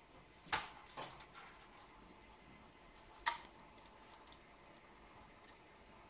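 Cockatiel moving about its rope perch and speaker top: a few sharp taps and clicks, the loudest about half a second in and again about three seconds in, with fainter ticks between.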